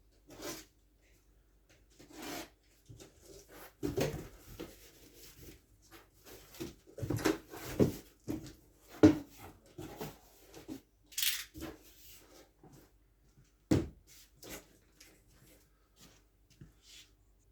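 A large cardboard shipping box being handled and opened: irregular knocks, scrapes and rubs, with a sharp knock about halfway through and another one later.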